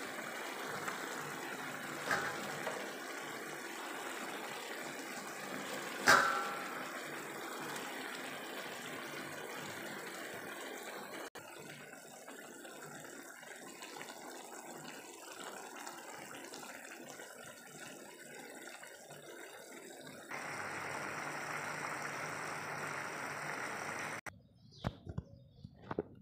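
Chicken, tomato and sayote simmering in a pan: a steady bubbling hiss, with a sharp knock about six seconds in and a fainter one about two seconds in. It turns quieter a little before halfway, comes back louder after about twenty seconds, and breaks off near the end with a few small clicks.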